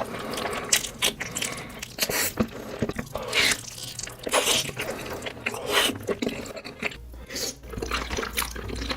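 Close-miked eating: wet chewing and mouth smacks with irregular crunches.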